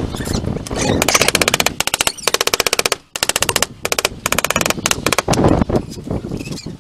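Rapid machine-like hammering, about twenty strikes a second, in short bursts that stop and start several times.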